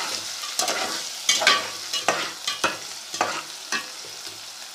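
Onions and chopped garlic-ginger sizzling in hot ghee in a cooking pot, stirred with a spoon that scrapes the pot in irregular strokes.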